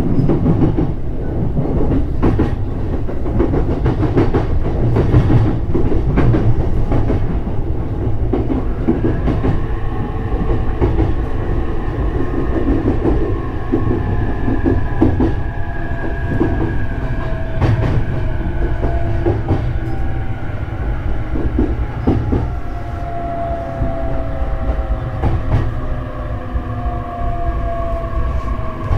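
JR East E531-series electric train running with a steady rumble and wheel clicks over rail joints. About a third of the way in, the motors' whine sets in and falls slowly in pitch as the train slows.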